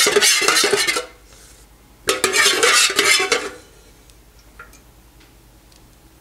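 Metal spoon stirring and scraping inside a metal pouring pitcher of melted soy wax. One bout ends about a second in, a second runs from about two seconds to three and a half, then only a few faint clicks.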